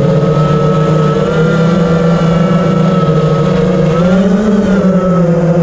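FPV quadcopter's brushless motors and propellers whining steadily in flight, the pitch swelling briefly about four seconds in and settling back.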